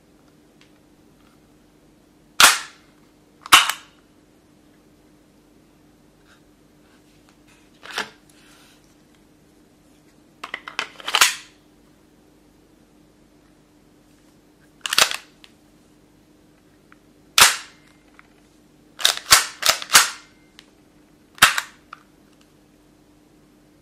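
Sharp mechanical clicks and clacks from a Tokyo Marui H&K USP gas blowback airsoft pistol being worked by hand. They come singly or in quick clusters at irregular gaps, with a run of four close together about three-quarters of the way through.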